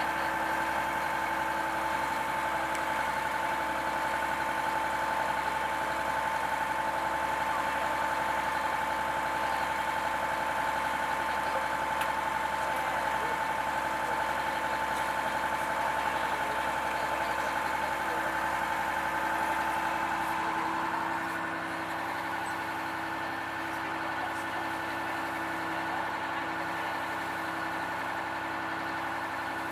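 Engine of a WWII landing craft running steadily under way, a hum with several held tones. About two-thirds of the way through, the engine note changes: a high whine drops out and the level falls slightly.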